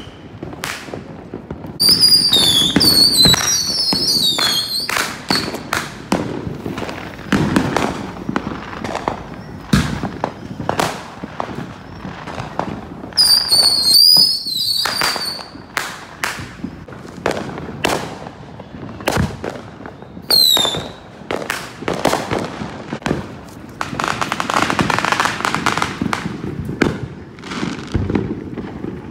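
Street fireworks: a steady run of firecracker bangs and pops, with high warbling rocket whistles twice, about two seconds in and again about halfway, the second as a bottle rocket launches from a glass bottle. A short falling whistle comes about two-thirds through, and a stretch of crackling near the end.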